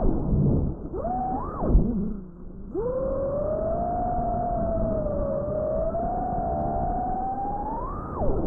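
FPV racing quadcopter's brushless motors whining through a freestyle flight. The pitch shoots up and falls back with throttle punches near the start, about a second and a half in, and near the end, and drops away briefly around two seconds in when the throttle is cut.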